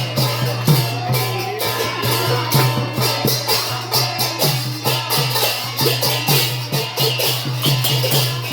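Sylheti dhamail folk song: voices singing together over fast, even hand-clapping and light percussion, with a steady low hum underneath.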